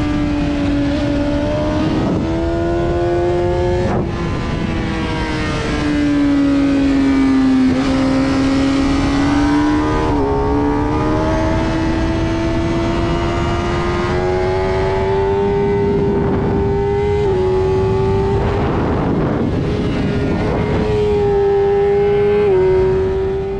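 Inline-four engine of a 2007 Suzuki GSX-R600 sport bike at racing speed, heard from an onboard camera with wind rush. Its pitch climbs steadily under throttle and drops briefly at each gear change, about a handful of times.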